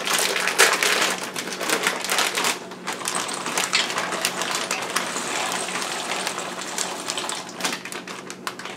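Dry pasta poured from a plastic bag into a pot of boiling water: a rapid clatter of hard pieces, with crinkling of the bag and the hiss of the water. The clatter is densest for the first couple of seconds, then thins to a steadier trickle.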